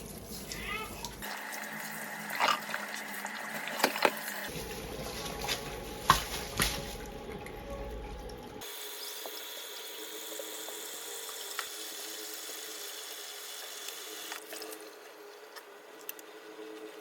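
Water running from a tap into a kitchen sink, with sharp knocks and clatter in the first half. The sound changes abruptly a few times and is steadier in the second half.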